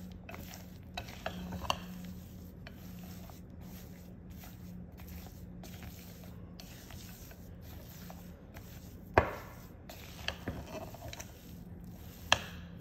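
Silicone spatula stirring thick cookie dough with chocolate chunks in a glass bowl, a faint scraping and rubbing, with two sharp knocks, one about nine seconds in and one near the end.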